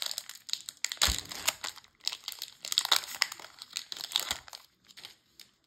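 Crinkling of a foil Magic: The Gathering set booster wrapper being handled, in irregular bursts that die away about four and a half seconds in.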